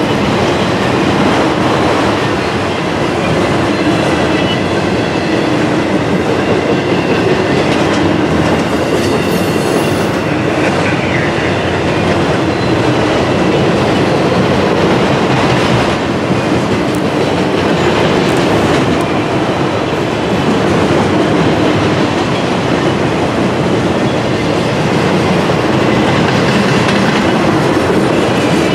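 A train rolling past close by: its steel wheels run on the rails with a loud, steady rumble, and a few faint high wheel tones come through now and then.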